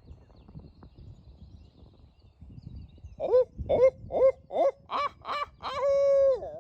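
A hunter's barred owl locator call: a quick run of about seven hoots, then one long drawn-out final note that drops off at the end, the 'who-cooks-for-you-all' rhythm. It is used to shock a roosted turkey into gobbling.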